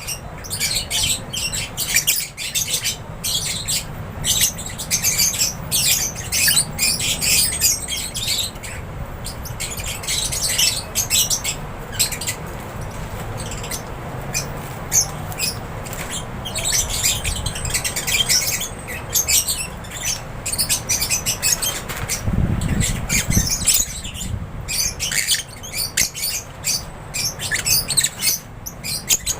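A flock of lovebirds chirping and squawking, many short high calls overlapping with no pause. There is a brief low rumble about two-thirds of the way through.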